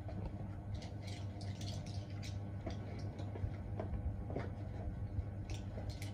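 Metal dental pick scraping paste off model teeth, making short irregular clicks and ticks, over a steady low hum.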